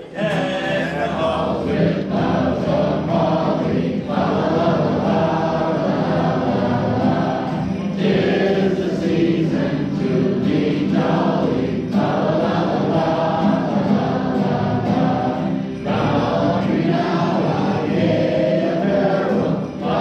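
A large group of voices singing a song together in unison, in phrases about four seconds long, with a piano accompanying.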